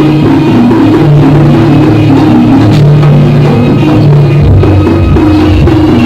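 Loud live jaranan music: drums under repeating melodic lines played in a steady, dense pattern.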